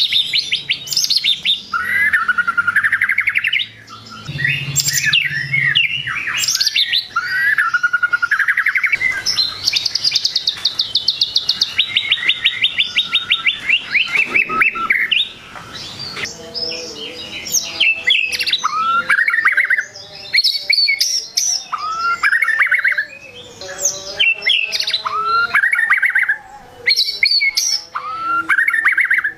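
White-rumped shama singing a continuous, varied song: rising whistled notes and quick chattering phrases, with a long fast trill midway that steps down in pitch.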